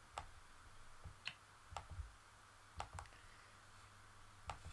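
Computer mouse clicking, about six short, sharp clicks a half-second to a second apart, as code blocks are picked up and dropped.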